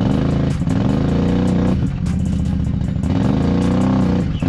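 Can-Am ATV engine revving hard in repeated surges, its pitch rising and falling about once a second with short dips between: the quad's wheels are buried in deep mud and it is stuck.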